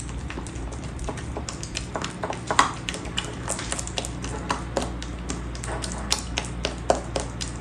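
Metal spoon stirring and beating thick gram-flour batter in a ceramic bowl, breaking up the lumps: an irregular run of clicks and taps as the spoon knocks and scrapes against the bowl.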